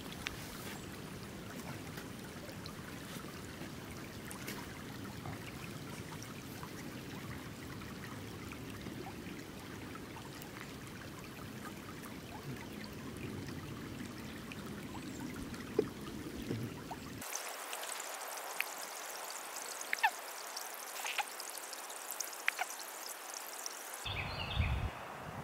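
Running water trickling steadily. About two-thirds of the way through, the sound changes abruptly to a thinner hiss with scattered sharp clicks.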